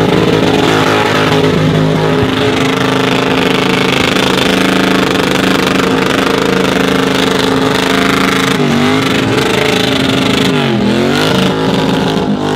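Car engine held at high revs during a burnout, rear tyres spinning in smoke. In the last few seconds the revs drop and climb again twice.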